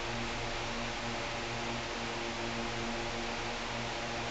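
Steady hiss with a low electrical hum underneath, its tones wavering slightly.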